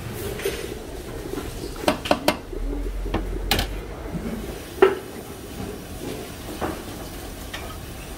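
Kitchen clatter: a handful of sharp clinks and knocks of metal pots and utensils, the loudest about five seconds in, over a steady background noise.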